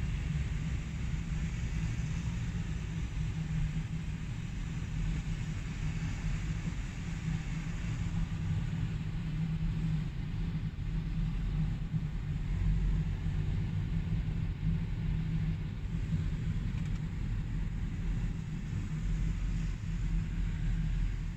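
Steady low rumble of a car's engine and tyres on the road, heard from inside the cabin while driving in traffic.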